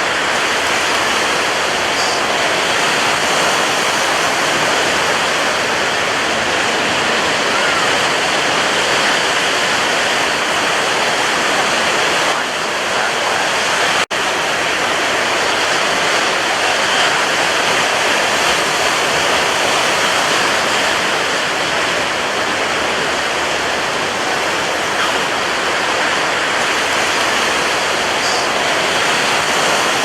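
Sea waves: a steady, unbroken rush of surf and water. The sound drops out for a split second about halfway through.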